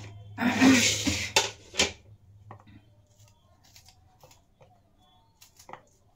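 A ceramic plate scraped across a stone countertop for about a second, followed by two sharp clicks. Then faint, scattered ticks of a small knife cutting a tomato held in the hand.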